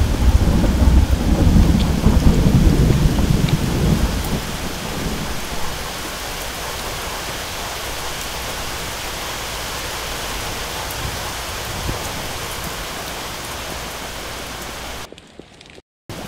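Thunder rumbling over steady rain, the rumble loud at first and fading away over the first four or five seconds, leaving the even hiss of rain. The sound drops out suddenly near the end.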